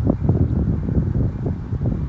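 Wind buffeting the microphone in irregular gusts, a loud low rumble with no steady rhythm.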